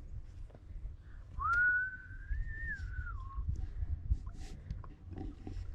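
A person whistling one long note of about two seconds that slides up at the start and drops at the end, over a low rumble.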